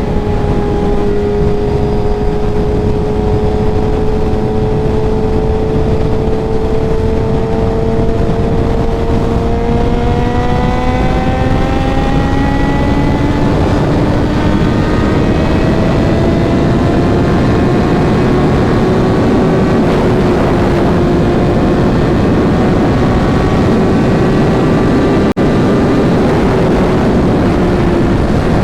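Suzuki GSX-R1000 inline-four, stage-tuned with a Racefit exhaust, riding under steady throttle. The engine note climbs slowly over the first half, then holds, under a rush of wind and road noise that grows as speed builds.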